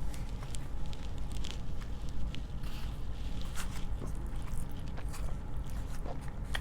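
A person chewing and biting food close to the microphone, with many small scattered crackles and wet clicks.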